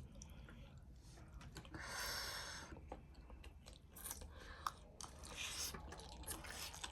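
A person chewing mouthfuls of spicy noodles and gilo chatpate, faint, with small crunches and wet mouth clicks, and a soft breathy rush about two seconds in.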